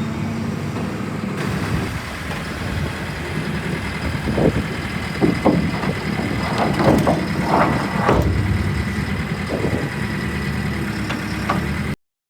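JCB 413S wheel loader's diesel engine running steadily, with a run of knocks and clanks from about four to eight seconds in. The sound cuts off abruptly near the end.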